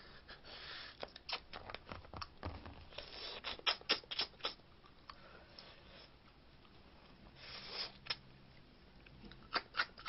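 Snow crab being eaten: wet sucking of the meat out of the leg shells, with scattered sharp clicks and crackles of shell.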